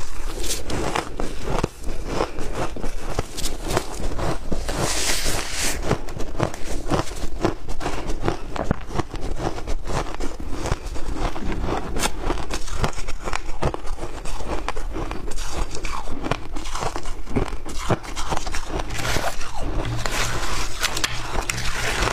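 Shaved ice with milk powder being chewed close to the microphone, a dense run of crisp crunches. Near the end a metal spoon scrapes and scoops through the ice in the plastic bowl.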